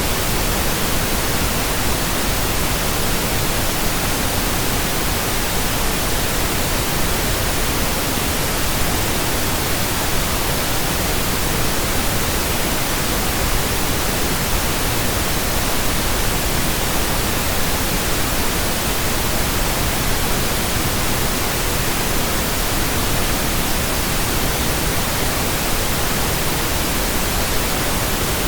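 Steady, unbroken synthetic pink noise, an even hiss across the whole range with no tones, beats or changes.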